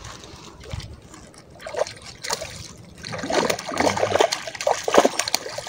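A hooked mullet thrashing at the surface close to the bank, with irregular splashes that grow louder from about three seconds in.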